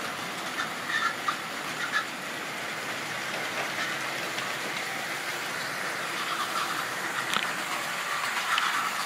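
Model railway goods train running on sectional track: a steady rolling rattle of small wheels on the rails, with a few clicks in the first two seconds.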